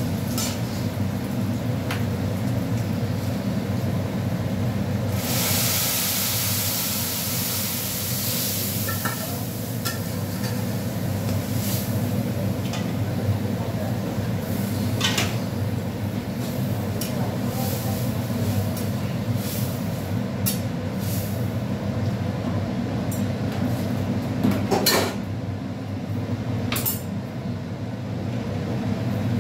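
Dal poured into a pan of hot oil and fried onions, hissing and sizzling loudly for about four seconds from about five seconds in, over a steady low hum, with scattered clinks of a spoon against the pot.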